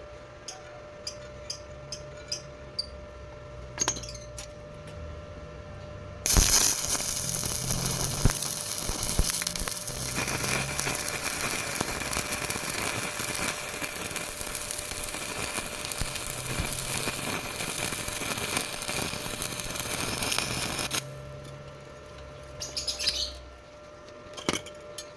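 Stick (arc) welding on thin galvanized square tube: about six seconds in, the arc strikes and crackles and hisses steadily for about fifteen seconds, then cuts off abruptly. A few light taps and clicks come before and after it.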